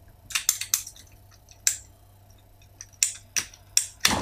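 Pipe cutter clicking and snapping as it cuts through a plastic water pipe: a cluster of sharp clicks early on, then a longer run of snaps ending in the loudest one near the end.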